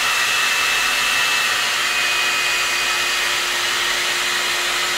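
Amika hot-air blower brush running steadily as it is rolled and drawn slowly down through a section of hair: a steady rush of air with a thin high whine.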